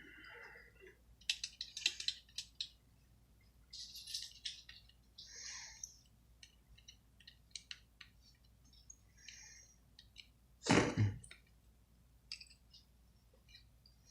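Small clicks, taps and rattles of tools and phone parts being handled on a workbench during a smartphone screen repair, with one louder thump about three-quarters of the way through.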